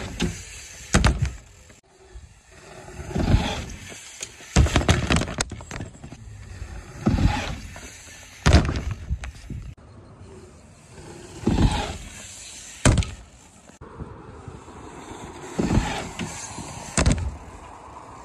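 Mountain bike riding dirt jumps: tyres rushing over packed dirt and the bike thudding down on landings. About ten loud, sudden knocks and rushes come one after another, several in pairs about a second apart.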